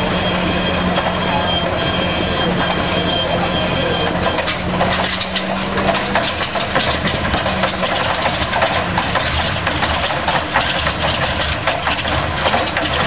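Pratt & Whitney R-1830 Twin Wasp 14-cylinder radial aero engine from a B-24 Liberator running on a ground test stand with its propeller turning. It runs steadily at first, then from about four seconds in turns rougher, with irregular pops.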